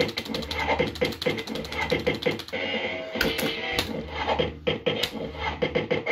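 JPM Red Hot 6 fruit machine playing spin after spin in quick succession, with the clatter and clicks of the reels running and stopping and the machine's electronic sound effects and tones.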